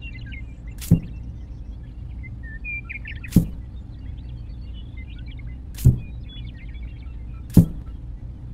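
Four sharp knocks, one every two seconds or so, as miniature clay wall panels are set in place, over a steady low rumble with faint birdlike chirps.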